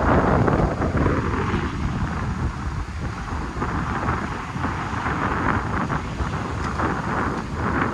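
Storm wind buffeting the microphone in uneven gusts, loudest in the first second.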